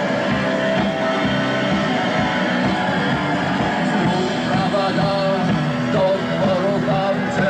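Rock band playing live, with electric guitar and a steady beat.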